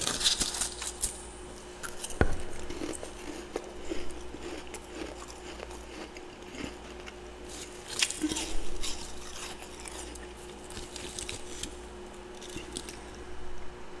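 Freezer frost crunching and crackling in irregular bursts as it is broken up by hand and bitten, loudest near the start, about two seconds in and about eight seconds in. A faint steady low hum sits underneath.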